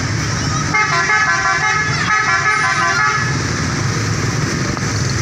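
Bus's multi-tone musical horn playing a short tune of several stepped notes, from about a second in until about three seconds, over a steady engine and traffic rumble.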